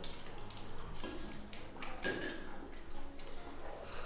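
Dishes and tableware clinking: a few light knocks, then one ringing clink about two seconds in.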